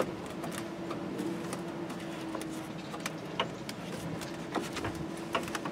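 Scattered light clicks and taps from hands fitting a bolt and handling plastic sheeting inside a pickup truck's door, over a faint steady hum.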